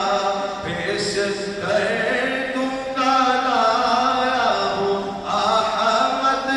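A man chanting an unaccompanied Islamic devotional poem (naat) solo in long, held melodic phrases.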